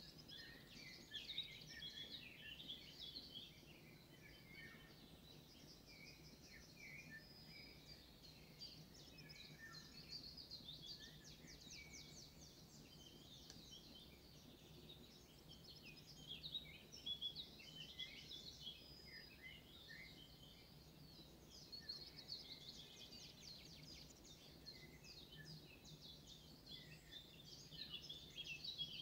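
Faint outdoor birdsong: small birds chirping and trilling in quick, overlapping high calls, busier in stretches, over a steady low background hum.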